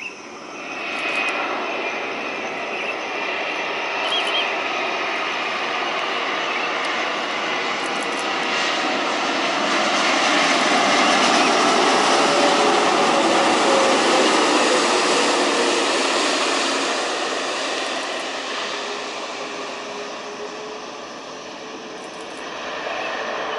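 Rolls-Royce Trent 7000 turbofans of an Airbus A330-900neo coming in to land: a steady jet rumble and whine that grows as the airliner approaches and is loudest as it passes. A whine falls in pitch as it goes by, then the sound eases off and swells again near the end.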